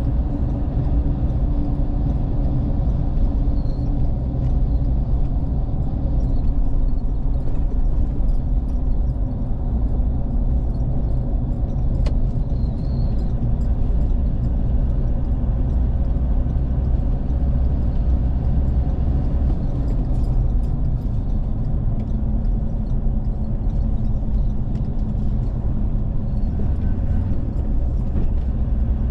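Steady running noise of a road vehicle on the move: a continuous low engine and tyre rumble.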